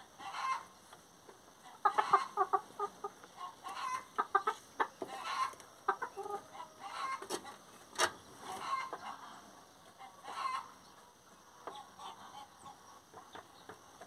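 Chickens clucking: short calls come in bursts, with brief pauses between them. There is a sharp tap about eight seconds in.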